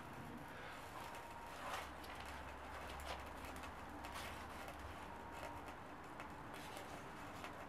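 Small kindling fires of birch bark and wax-soaked egg carton burning faintly under split logs, with scattered sharp crackles and pops over a low steady rumble. A bird calls faintly in the background.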